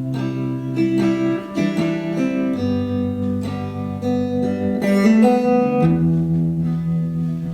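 Acoustic guitar playing a song's instrumental intro: ringing chords, each sounded with a sharp attack, changing about every second or so.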